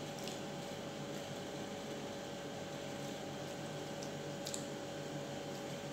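Steady background hum with a few faint, brief clicks from a person chewing a mouthful of food.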